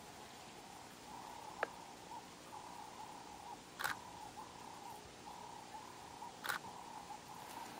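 Quiet outdoor ambience: a faint chirping call repeated every fraction of a second, with a sharp click about one and a half seconds in and two brief, louder clicks near four and six and a half seconds.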